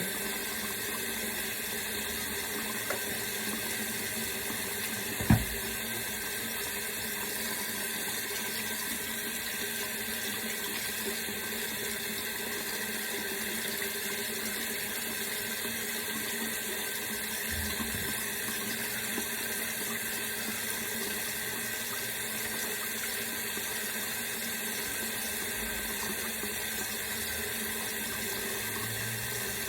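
Water from a tap running steadily into a sink while hair is being washed, with a single knock about five seconds in.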